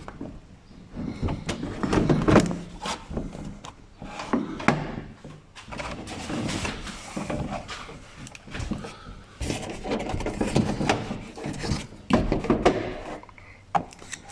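Irregular knocks, clicks and rustles of hands handling and fitting car parts on a vehicle's tailgate, several sharp clicks standing out.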